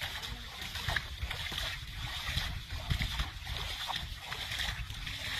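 A hooked fish thrashing at the surface of shallow water, splashing again and again as it is hauled in on a hand line.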